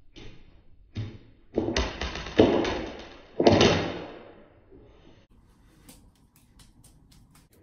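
Plastic juggling clubs knocking and clattering as they are juggled and caught: a few sharp knocks, then three louder clattering impacts that ring on briefly, the last one the loudest. A fast run of light clicks follows near the end.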